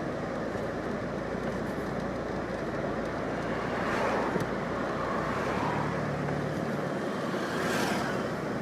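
Street traffic: steady road noise of cars, swelling briefly about four seconds in and again near the end as vehicles pass.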